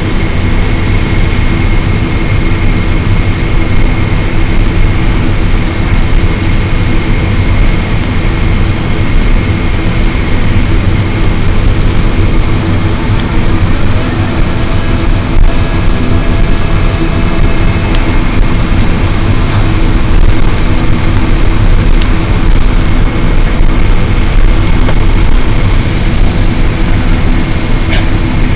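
Cabin noise of a Boeing airliner taxiing after landing: its jet engines run at idle with a faint steady whine over a deep, steady rumble.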